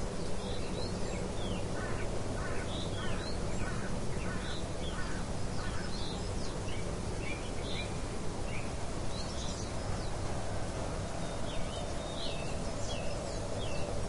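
Birds chirping in many short, quick calls over a steady hiss of rain.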